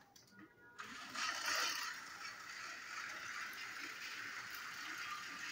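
Two battery-powered toy train engines switched on about a second in, their small motors whirring and wheels rattling steadily along plastic track.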